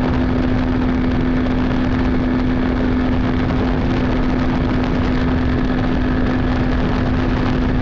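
Evinrude 70 hp two-stroke outboard motor running at a steady pitch, driving a bass boat across the water. A steady rush of noise surrounds the engine tone.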